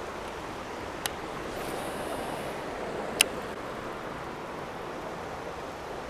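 Steady rush of water pouring over a spillway, with two sharp clicks from a baitcasting reel, one about a second in and one about three seconds in.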